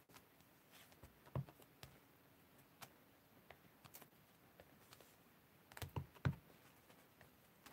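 Faint taps and knocks of a small stamp held in the fingers, without a block, being pressed onto cardstock and dabbed on an ink pad: a single louder knock about a second and a half in, and a quick cluster of taps about six seconds in.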